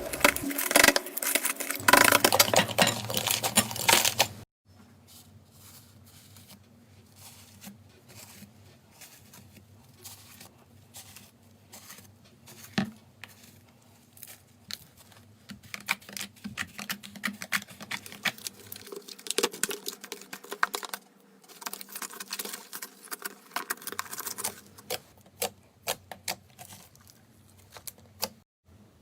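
Slime being squeezed and pressed by hand, making rapid small clicks and pops. The first four seconds are louder and crackling; after an abrupt cut the clicks are quieter and sparser, then grow busier again from about the middle on.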